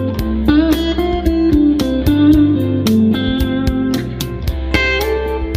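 Instrumental background music: guitar over a steady bass line and a regular drum beat.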